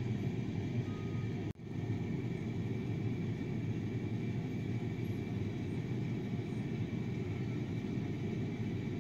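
Steady low rumbling background noise with a faint high steady hum, cutting out for an instant about one and a half seconds in.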